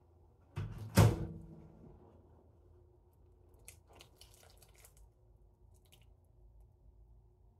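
A single heavy knock of something set down hard on a kitchen counter, with a short ringing tail and a softer thud just before it. Then light clicks and rustling as the lid is worked off a small container.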